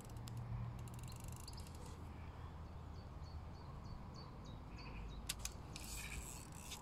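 Faint lakeside background noise. Midway through, a run of short high chirps comes about three times a second for a couple of seconds, followed by two sharp clicks.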